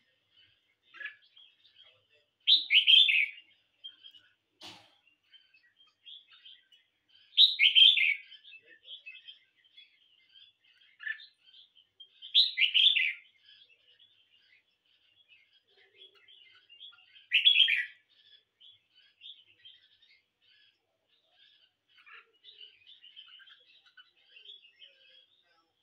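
Red-whiskered bulbul song: four loud, short phrases about five seconds apart, with softer twittering between them.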